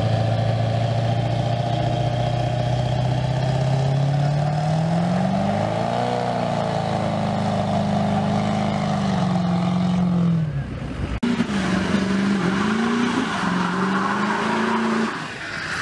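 Diesel pickup truck engine held at high revs during a burnout, its pitch climbing about five seconds in and dropping back near ten seconds. After a cut, another diesel pickup's engine revs up and down.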